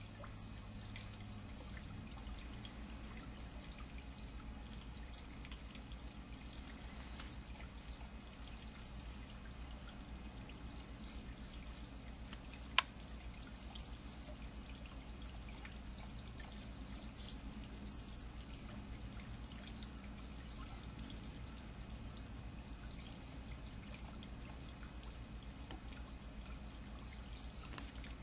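High, thin calls of small songbirds, repeated every second or two over a low steady hum, with one sharp click about halfway through.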